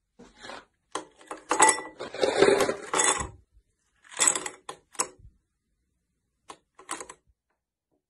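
Ice cubes tumbling out of an ice cube tray and clinking into a glass tumbler: a dense clatter over the first few seconds, a second burst a little later, and a few lighter clinks near the end.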